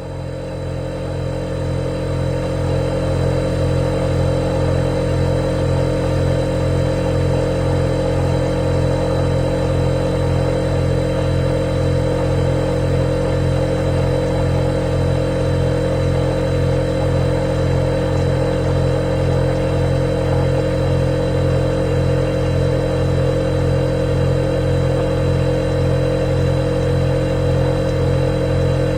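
Refrigerator compressor running: a steady low electrical hum with a thin high whine over it, swelling up over the first few seconds and then holding even.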